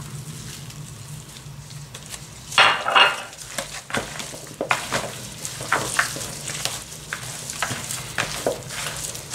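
Gloved hands kneading raw meat chunks, onion and spice mix in a plastic tub: repeated wet squelching and crackling strokes starting about two and a half seconds in, over a low steady hum.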